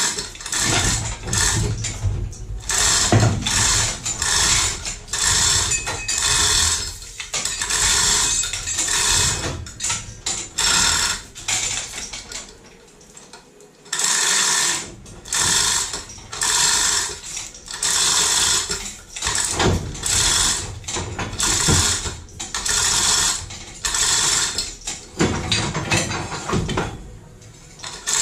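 A ratcheting mechanism worked in short, repeated strokes, roughly one a second, with a pause of about two seconds midway.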